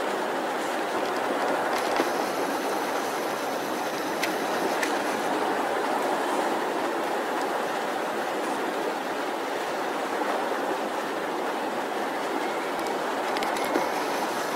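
Steady wash of surf breaking on a sandy beach, with a few faint clicks.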